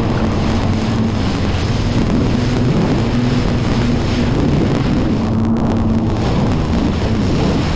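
A jet ski's engine running steadily at speed, its drone wavering slightly in pitch, over the rush of water and wind on the microphone.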